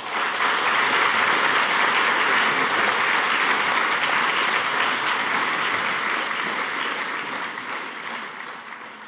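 Audience applauding, starting at once and holding steady, then slowly dying down over the last few seconds.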